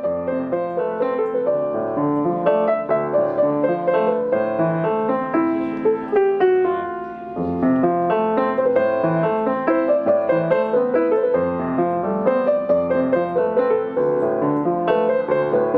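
Background piano music: a steady run of struck notes, dipping briefly about halfway through.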